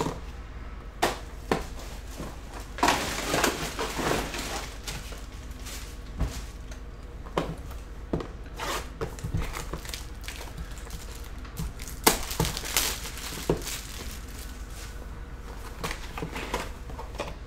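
Hands opening a cardboard 2022 Topps Clearly Authentic trading-card box: crinkling of the wrapping in a few stretches, with scattered knocks and taps as the box is handled on the table.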